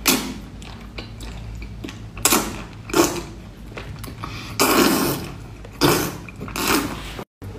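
Close-up wet slurping and sucking as chili-coated octopus tentacles are drawn into the mouth. About six short slurps, the longest near the middle.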